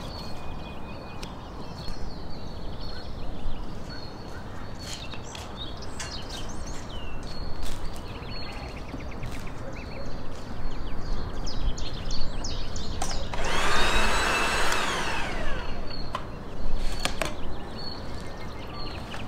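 Yard ambience with small birds chirping, scattered clicks and knocks of a knife on a wooden cutting board and of metal skewers. About two-thirds of the way in, a loud rushing noise with a falling whine rises and fades over about two seconds.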